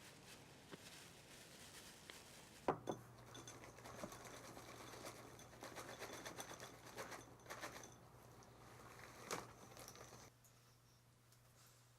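Faint handling sounds: light rustling and scattered clicks, with a sharper knock about three seconds in and another about nine seconds in.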